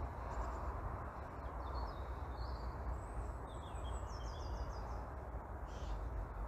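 Small birds chirping, with short calls and quick twittering runs of high notes several times, over a steady low rumble of background noise.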